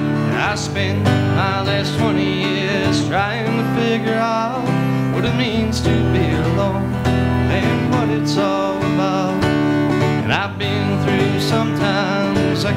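Live country-style instrumental passage: acoustic guitar strummed under a harmonica played from a neck rack, with sustained low notes beneath.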